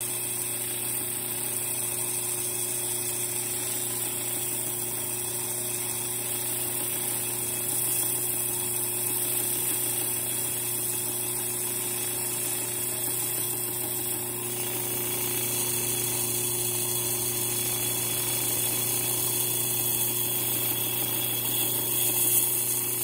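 Milwaukee 6236 Portaband band saw running steadily, its blade passing through the widened throat slot of the stand plate without striking it.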